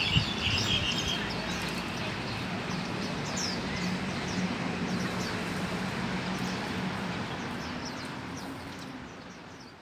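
Small wild birds chirping: many short, high, downward-sliding notes over a steady low hum, with a brief knock right at the start. It all fades out near the end.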